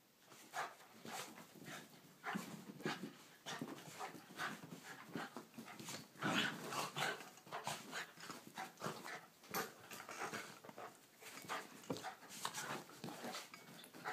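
Two small dogs play-fighting on carpet: a continuous run of short, irregular dog noises and scuffling, busiest about six to seven seconds in.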